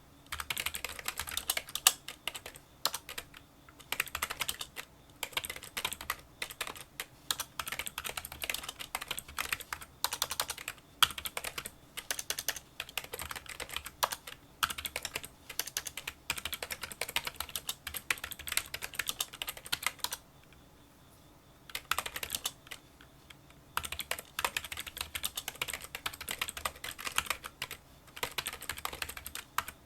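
Touch-typing on a Kinesis Freestyle Solo split keyboard with membrane key switches: a dense run of small clicking keystrokes, quieter than a typical membrane keyboard. The typing stops for about two seconds around two-thirds of the way through, then carries on.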